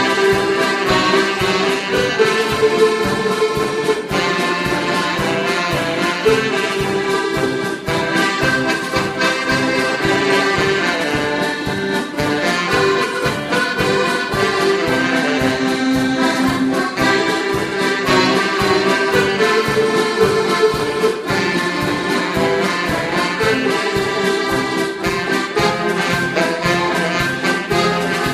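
Live accordion band playing an upbeat tune: several accordions carrying the melody, with alto saxophone, a brass horn and a drum kit keeping a steady beat.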